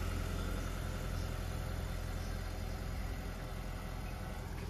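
Car engine idling steadily with a low, even hum.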